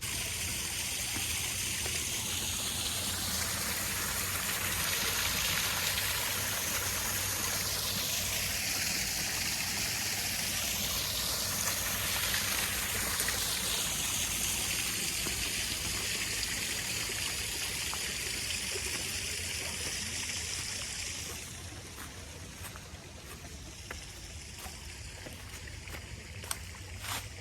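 Waterfall splashing and rushing steadily; the rush grows quieter and less hissy about three-quarters of the way through.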